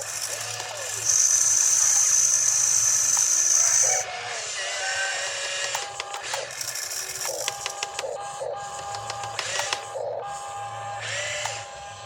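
Small electric motor and plastic gearbox of a toy RC construction vehicle whirring and clicking. A loud, steady high whine runs for about three seconds from about a second in, then gives way to lighter clicking and rattling.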